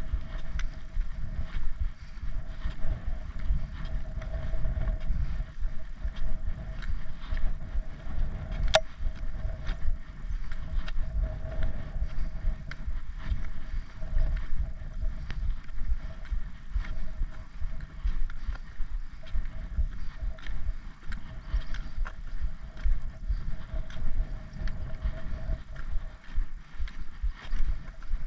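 Walking on a tarmac lane with a trekking pole: wind rumbling on the microphone, with steady footsteps and the pole's tip clicking irregularly on the tarmac. One sharper click comes about nine seconds in.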